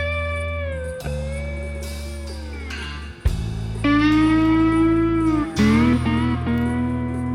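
Background music: a slide guitar playing long notes that bend and glide in pitch over a steady bass.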